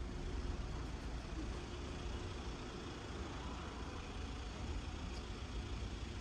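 Road traffic: a steady low engine rumble with tyre noise from vehicles on the road.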